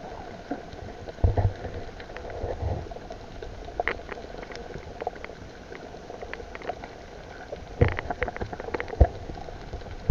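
Underwater sound heard through a camera in the sea: a steady hiss with scattered sharp clicks and crackles, and a few muffled thumps.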